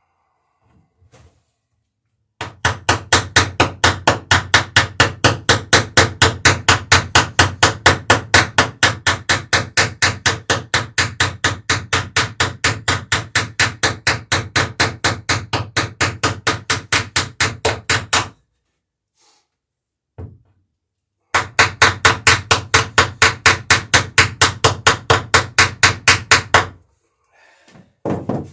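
Hammer peening rivets over on the overlapping planks of a wooden dory, forming the rivet heads to clench the laps. It is a fast, even run of sharp blows, about four a second, lasting some sixteen seconds, then a short pause and a second run of about five seconds.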